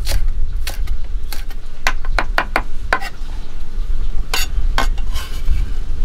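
Heavy kitchen knife chopping green onion and shallots on a thick wooden chopping block: a run of sharp knocks, quickest about two seconds in, then a few spaced strikes.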